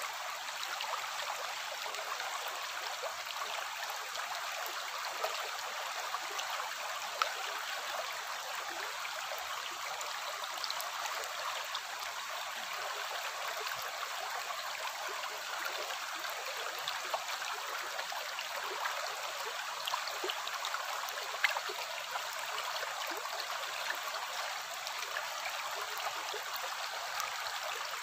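Shallow stream running over rocks: a steady, light rushing and babbling with little deep rumble, and a few brief louder splashes.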